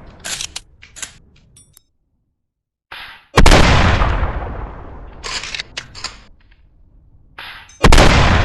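Winchester Model 1912 pump-action shotgun firing twice, about four and a half seconds apart, each shot echoing away. Between shots come quick metallic clacks of the slide being worked to eject the spent shell and chamber the next.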